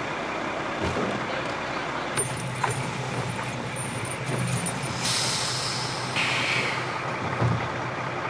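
Diesel truck engine running steadily, with a few light knocks and a loud burst of hiss about five seconds in that lasts a couple of seconds.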